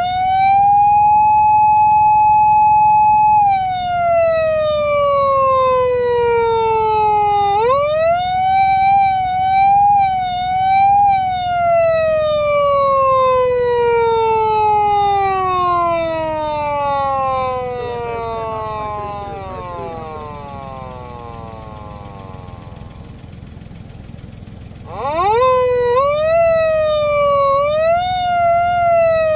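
Japanese police-car electronic siren from a PATLITE SAP500 siren amplifier, wailing through its speaker. The tone rises and holds steady for a few seconds, slides down, rises again with a wavering peak, then falls slowly and winds down almost to nothing before starting up again near the end with stepped rises. The uneven rises and holds are those of the siren being worked by hand in manual mode.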